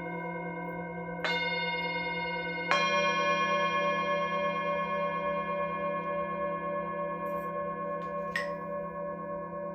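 Singing bowls struck in turn, each strike adding a new ringing tone over those still sounding, with a slow wavering beat in the sustained hum. Strikes come about a second in and near three seconds, with a lighter tap later.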